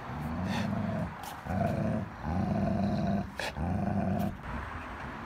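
A dog growling in about four long, low rumbles in a row. It is a possessive growl over a toy that two dogs are both gripping in a tug of war.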